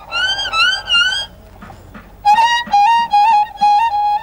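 Violin playing: three quick notes that slide upward into pitch, then after a short pause a fast melody of separate stepped notes.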